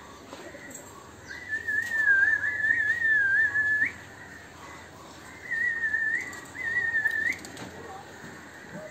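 Person whistling a wavering, single-note tune in three phrases: a long one, then two shorter ones, each ending in a quick upward flick.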